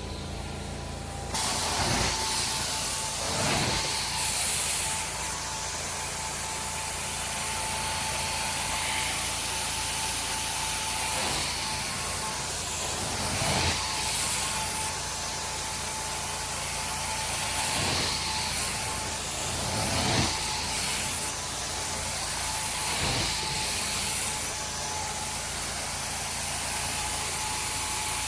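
Carpet cleaning machine switching on about a second in, then running as a loud, steady hiss with a whining motor tone. The hiss swells every two to three seconds as the tool is passed back and forth over the carpet.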